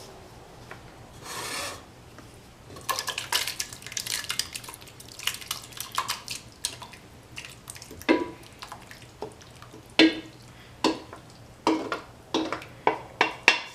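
A metal spoon scraping and clanking against a cooking pot while thick chili is stirred and spooned into it: a run of busy scrapes, then single sharp scrapes with a short metallic ring about once a second, coming faster near the end.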